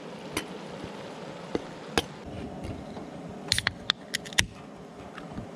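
A few light knife taps as chopped garlic is scraped off a plastic cutting board into a pan. About three and a half seconds in, a quick run of sharp clicks and a snap as the tab of an aluminium beer can is pulled open.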